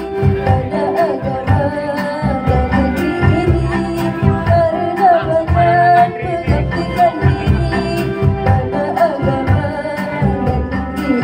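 A female solo singer sings into a microphone over a backing track with a regular beat; her melody wavers and slides between held notes.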